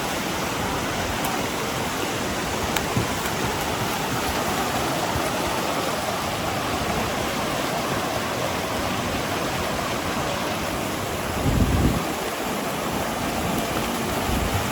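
Rushing water of a waterfall, a steady even roar. A brief low thump about eleven and a half seconds in.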